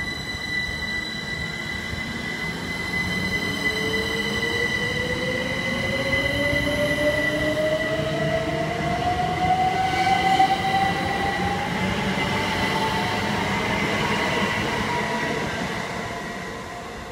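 GWR Class 387 electric multiple unit passing close by, its traction motors whining in a pitch that rises steadily as the train picks up speed, over a steady high whine and wheel-on-rail rumble. The sound fades near the end as the train draws away.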